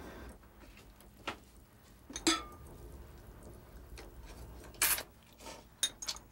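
Scattered clinks and knocks of dishes and utensils as someone eats, one of them ringing briefly.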